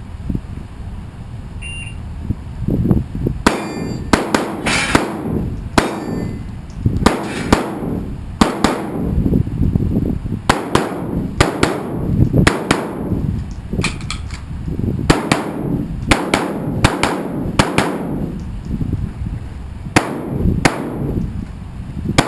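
A rapid string of shotgun shots, about one to two a second, starting about three and a half seconds in and running on with short pauses.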